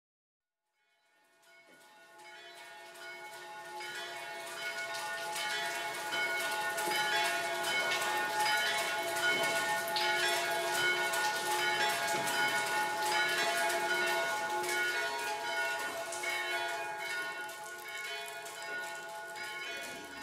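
Church bells ringing, many strokes overlapping into one continuous peal, fading in over the first few seconds.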